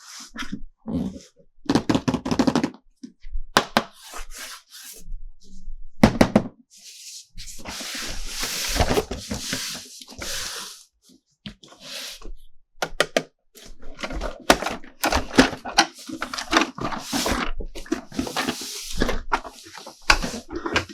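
Hands unboxing plastic toys: packaging rustling and crinkling, broken up by clicks and knocks of plastic toy parts.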